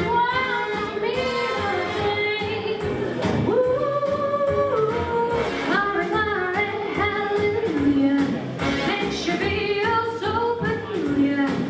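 Music with a woman singing a melody over a band accompaniment with a steady beat, a 1940s-style song.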